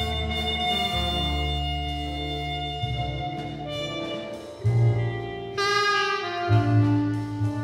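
Cool jazz from a trumpet, tenor saxophone, piano, bass and drums quintet: horns holding long notes over a low bass line. A brighter, higher horn line comes in a little past five seconds.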